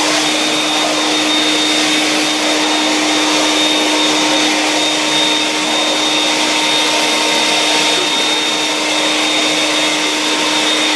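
Vax 221-07 wet/dry canister vacuum running steadily in dry mode on its two-stage 8.4 amp (1000 W) motor: an even rush of air with a steady low hum and a high whine.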